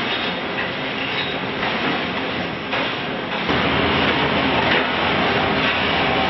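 Heavy machinery running steadily at a concrete block plant: the block-making line and a diesel wheel loader working beside it. It gets louder, with more low rumble, about three and a half seconds in.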